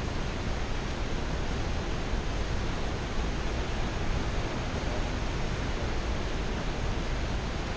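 Fast mountain river rushing over rapids: a steady, even wash of white water.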